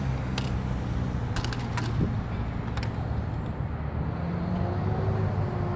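Steady low rumble of road traffic, with several sharp clicks in the first three seconds.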